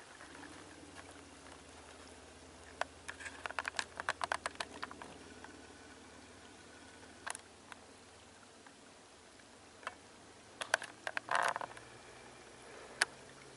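Footsteps through dry oak brush and patchy snow: runs of quick crackling clicks from twigs and leaf litter underfoot, one run a few seconds in and another near the end.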